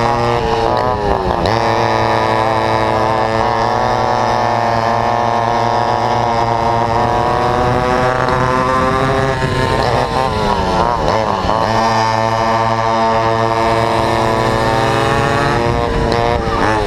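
Vintage go-kart's McCulloch MC-91 two-stroke engine at racing revs, heard onboard. Its pitch drops as the throttle is lifted for corners about a second in, around ten seconds in and near the end, then climbs back as it winds up again, with another kart's engine running close by.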